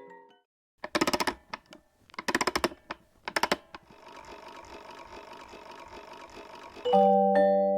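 Three short bursts of rapid mechanical clicking, then a faint steady whirr with a light hum. Mallet-percussion music comes in near the end.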